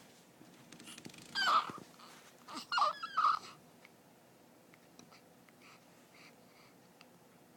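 A baby with hiccups making short squeaky vocal sounds whose pitch bends: one about a second and a half in, then two more close together around three seconds in.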